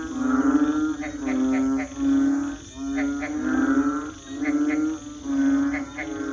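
Frogs calling in repeated low calls, each about half a second long and coming roughly once a second, over a steady high drone of crickets.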